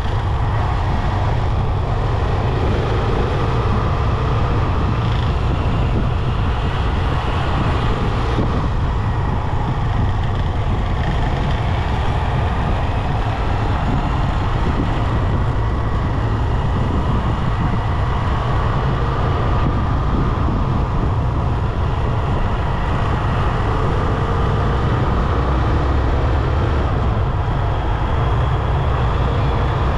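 Motorcycle riding through city traffic: steady engine and road noise with a heavy low rumble and no sharp events.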